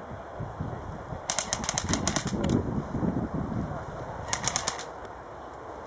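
An airsoft rifle firing two full-auto bursts of rapid clicks: a longer burst of about a second, then a short half-second burst about a second and a half later.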